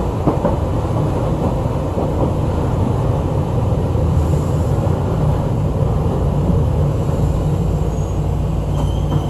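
Chikuho Electric Railway 3000-series electric train running between stations, heard inside the car: a steady rumble of wheels on rail with a low motor hum, and a couple of short knocks about a second in.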